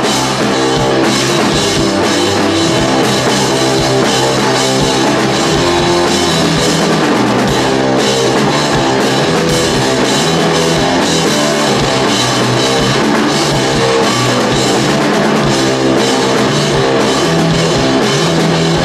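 Live rock band playing loudly and steadily: electric guitar, electric bass and a Ludwig drum kit.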